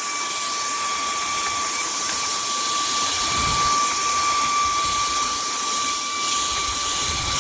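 Wkzay cordless handheld vacuum's brushless motor running steadily, a constant high whine over a rush of air, as it sucks up debris.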